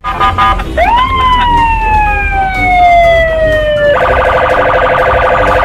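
Police car siren: a few short blips, then a tone that sweeps up and slowly falls for about three seconds. About four seconds in it switches to a rapid pulsing warble, over a low rumble of traffic.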